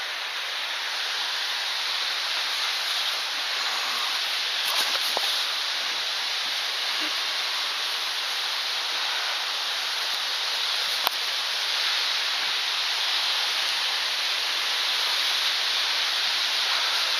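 Waterfall rushing: a steady hiss of falling water, with two sharp knocks, about five seconds in and about eleven seconds in.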